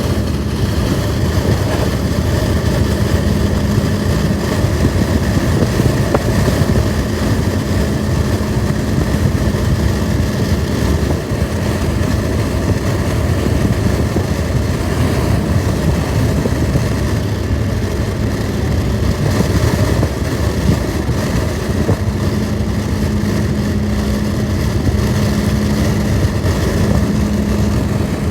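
Steady rumble of a vehicle on the move, with a low steady hum for about the first third and again near the end.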